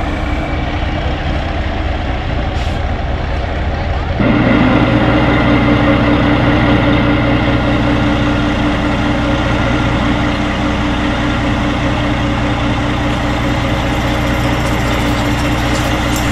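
Heavy diesel truck engines idling steadily. About four seconds in, the sound jumps to a louder, deeper idle and then holds steady.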